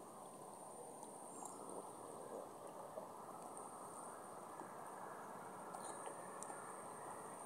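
Faint outdoor ambience: a steady high-pitched insect trill, like crickets, over a low steady background hiss, with a few faint clicks.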